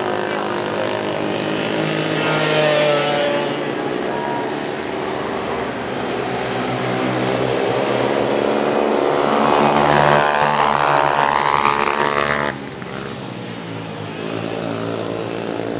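Several small ATV quad engines racing, revving and gliding up and down in pitch as the quads go through the corner. The sound is loudest as they pass close, then drops off suddenly about three-quarters of the way through.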